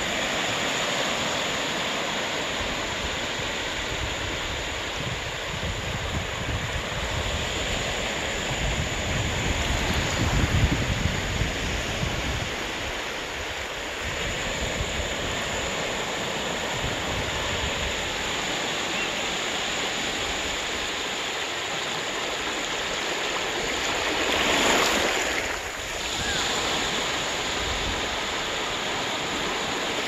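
Small waves breaking and washing up a sandy shore: a continuous wash of surf that swells louder about ten seconds in and again near the end.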